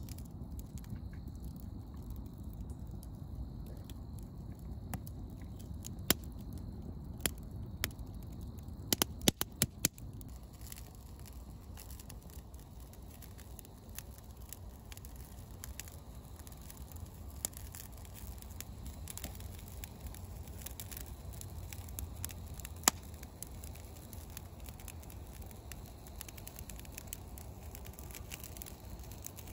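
Wood fire crackling, with sharp pops now and then and a quick cluster of them about nine seconds in, over a low steady rumble.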